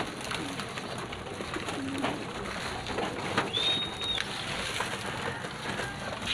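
A flock of racing pigeons at feeding time, cooing and flapping their wings as they scramble and jostle over the feed, with many sharp wing claps and clatters. A brief high whistle-like tone sounds about three and a half seconds in.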